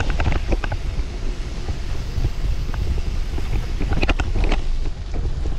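Wind buffeting the microphone of a camera on a moving bicycle, with the rumble of the tyres on a concrete lane. A few sharp clicks and rattles come near the start and again about four seconds in.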